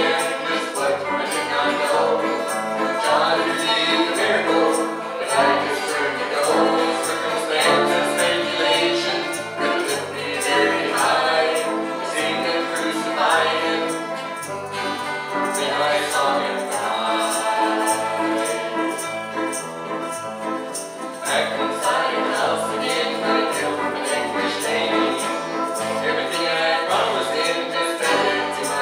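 Southern gospel music played live by a mixed bluegrass-style group: men and women singing in harmony over banjo, acoustic and electric guitar and piano. The music dips a little softer partway through and then builds again.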